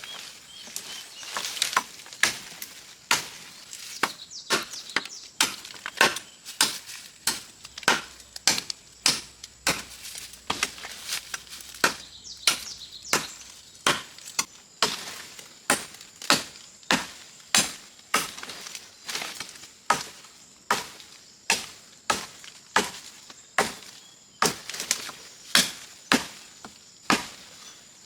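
Steady, rhythmic chopping: a blade striking nearly twice a second, each stroke sharp and short.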